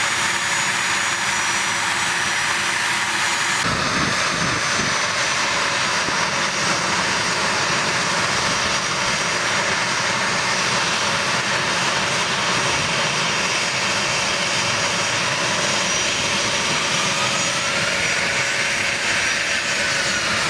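Twin General Electric TF34 turbofan engines of an A-10 Thunderbolt II running at taxi power, a steady jet whine and rush. The sound changes abruptly about four seconds in, and near the end a whistling tone rises and then falls as the aircraft taxis past.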